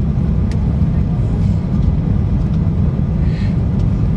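Steady low rumble inside the cabin of an Airbus A330-200 taxiing on the ground, from its running engines and rolling gear.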